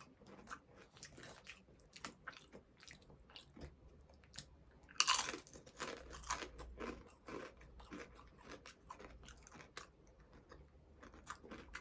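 Someone crunching and chewing crisps close to the microphone: a run of small crackly crunches, with one louder bite about five seconds in.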